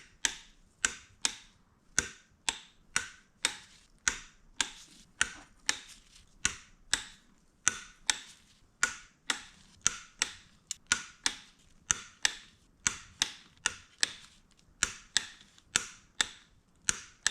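Ratchet of a torque wrench clicking steadily, about two to three sharp clicks a second, as bolts are run down to 11 N·m (about 97 inch-pounds).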